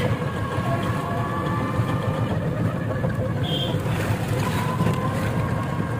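Steady road and wind rumble of a small three-wheeler rickshaw in motion, heard from the passenger seat, with a faint steady whine. A short high beep sounds about three and a half seconds in.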